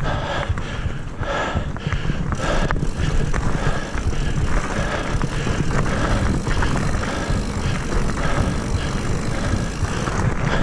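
Mountain bike rolling fast over a dirt singletrack trail: knobby tyres rumbling on dirt and leaves, the bike rattling over bumps, and wind buffeting the camera microphone.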